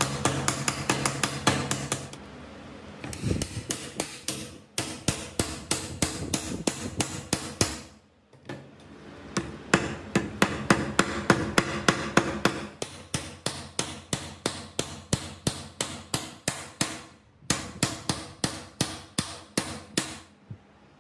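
Hand hammer striking metal repeatedly, about three to four blows a second, driving a sealed ball bearing into an aluminium bearing housing and a shaft into the bearing on a bench vise. The blows come in several runs with short breaks between them.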